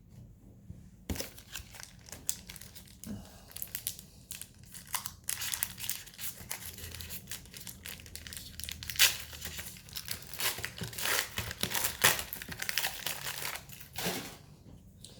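The wrapper of a trading-card pack being torn open and crinkled by hand, a dense run of crinkling and tearing from about a second in until near the end.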